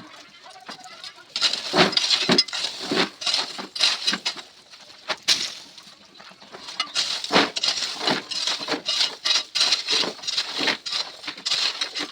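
Hand-tool work on building materials: a fast run of scraping, clinking strokes, a few each second, with a short lull about halfway through.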